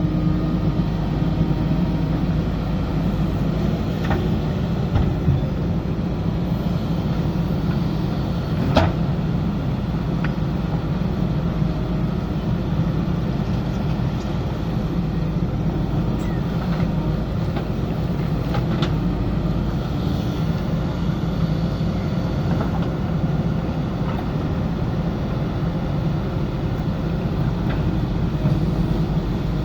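JCB backhoe loader's diesel engine running steadily under work, with a few sharp knocks, the loudest about nine seconds in.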